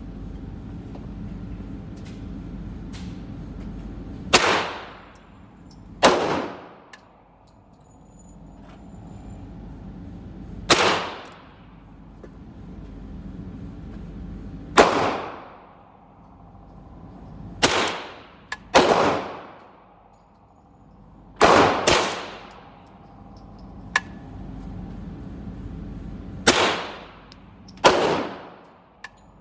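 Single shots from a Smith & Wesson M&P15-22 semi-automatic .22 LR rifle, about ten in all, fired one at a time at an uneven pace, with two coming close together about two-thirds of the way through. Each sharp crack is followed by a long echo off the walls of an indoor range, over a steady low hum.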